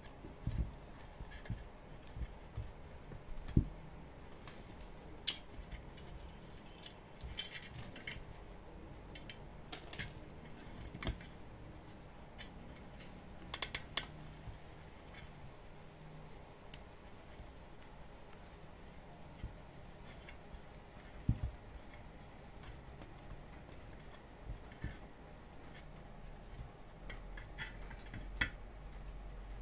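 Scattered light clicks, taps and short scrapes of small parts and hand tools being handled, at irregular intervals with a few sharper knocks.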